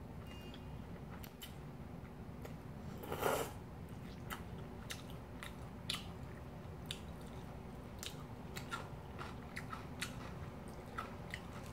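Close-up eating sounds of cold kimchi noodle soup. A short slurp about three seconds in is followed by soft chewing, with small scattered clicks and taps as chopsticks work the noodles in the bowl.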